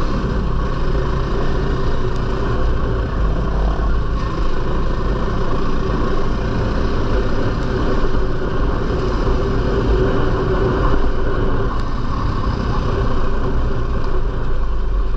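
Four-stroke dirt bike engine running steadily as the bike is ridden, with a constant rush of noise over it.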